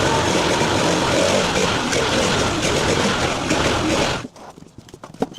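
A loud machine or engine running steadily, cutting off abruptly about four seconds in and leaving a few light clicks and knocks.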